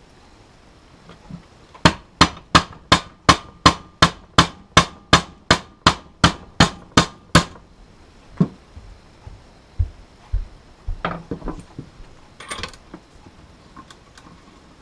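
A hammer striking the end of a steel socket extension about three times a second, some sixteen blows in a row, then one more, driving the outboard's trim-tilt mounting bolt through tight nylon bushings to seat it. A few lighter metal tool clinks follow.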